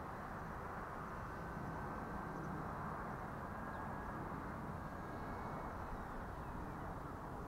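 Distant electric ducted-fan RC jet in flight: a faint steady whine over a constant rushing noise.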